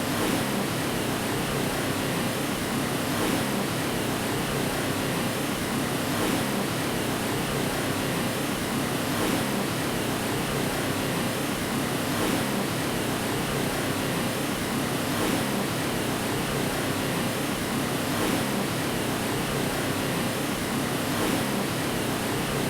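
Steady white noise of the kind played to lull a baby to sleep: an even, unchanging rushing hiss, fuller in the lower middle than in the highs.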